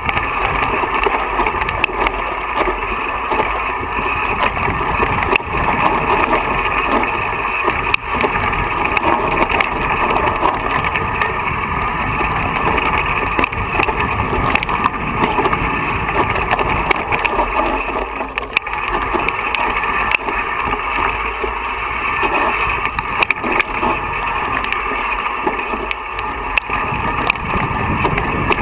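Mountain bike rolling fast down a rocky dirt singletrack: a steady rush of tyre and wind noise with constant rattling and many small knocks as the bike runs over loose stones.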